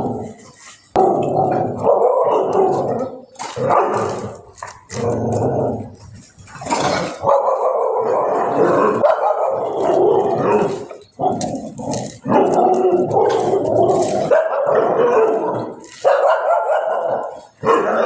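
An animal calling over and over, in loud, hoarse cries of a second or two each with short gaps between them.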